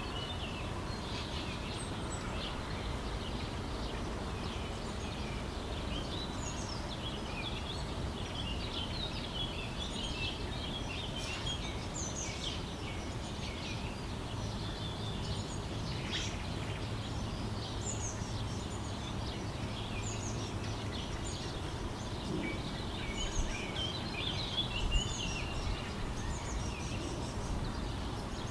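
Many small birds chirping and twittering continuously over a steady low background rumble.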